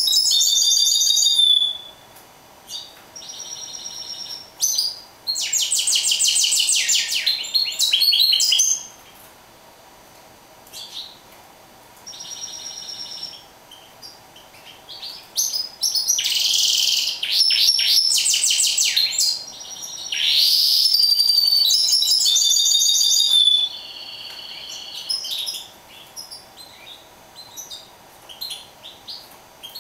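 A caged mule finch, a canary hybrid, singing in phrases of rapid high trills and chirps with short pauses between them. A faint steady hum runs underneath.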